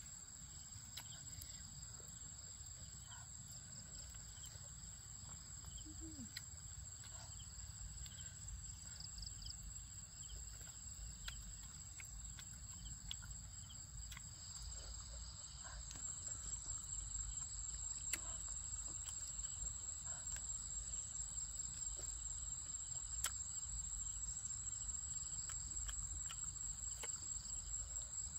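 Insects trilling steadily in one continuous high-pitched tone that grows a little louder about halfway through, with scattered faint clicks and taps over it.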